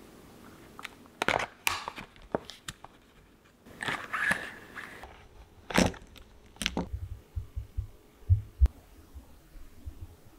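Plastic packaging of a set of ZIG Clean Color Dot markers crinkling as it is opened, and the plastic-barrelled markers clicking against each other as they are taken out. Near the end come a few soft thumps as the markers are set down.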